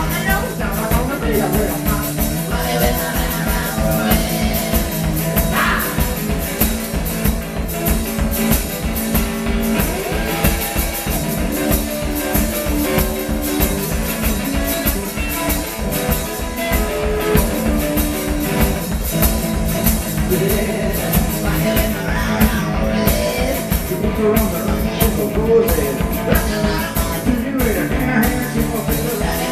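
One-man band playing live rock and roll: a hollow-body electric guitar strummed over a steady, driving beat on a foot-played bass drum, with a cymbal and a sung vocal at times.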